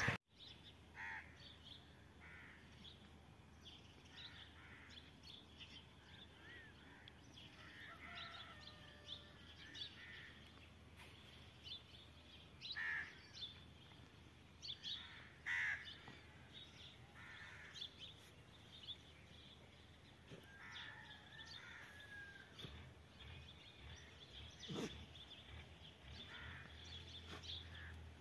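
Faint, scattered bird calls and chirps, short and irregular, over a quiet background hiss.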